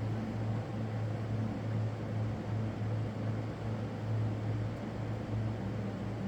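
A steady low hum over background hiss, swelling and fading a little every second or so, with no sharp cracks or pops.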